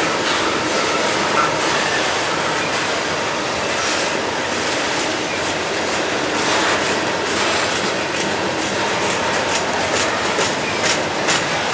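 Ballast hopper cars of a freight train rolling past, with steady wheel-on-rail noise and the clickety-clack of wheels over rail joints, the clicks sharper and more frequent near the end.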